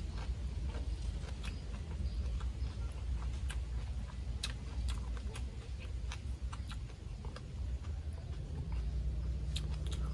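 A person chewing and eating boiled tiger prawn: irregular wet mouth clicks and smacks, several a second, over a steady low rumble.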